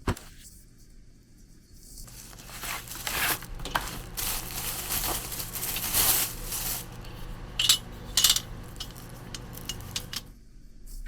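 Small hard objects being handled: scattered light clinks, taps and rustling, with two sharp clicks a little over half a second apart near the end.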